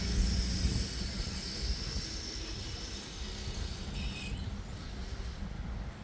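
Road traffic: a motor vehicle passing close, its engine rumble and tyre noise loudest at the start and then fading.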